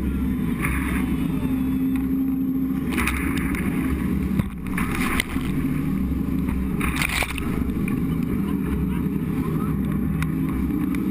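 Jet boat running through whitewater rapids: a steady low rumble of engine and rushing water, broken about four times by short loud splashes as spray crashes over the boat.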